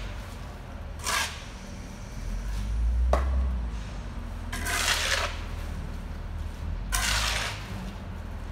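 Shovel scraping over gritty concrete in three separate strokes, each about half a second to a second long, a couple of seconds apart. A low engine rumble runs underneath and swells about three seconds in, and a single sharp click comes at about the same time.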